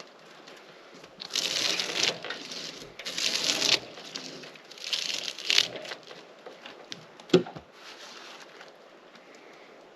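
Drawknife scraping bark off a wet pine log in three rasping strokes about a second long each, followed by one sharp knock.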